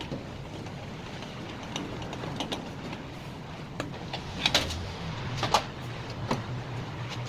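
Irregular sharp clicks and knocks of hand tools on the dryer's metal parts as its motor bolts are worked loose, the loudest a quick cluster about four and a half seconds in and another a second later, over a steady low hum.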